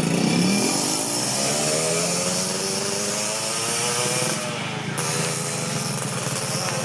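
Racing motorcycle engine at high revs, its pitch climbing steadily for about four seconds, then dropping sharply and running on at a steady high pitch.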